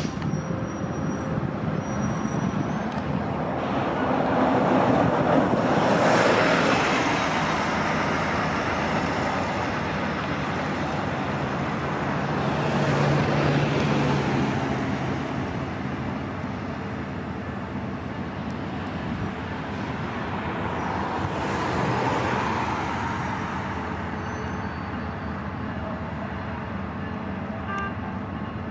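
EMD F40PH diesel locomotive running as it leads a passenger train slowly along the track, a steady engine drone with three slow swells of louder rushing noise.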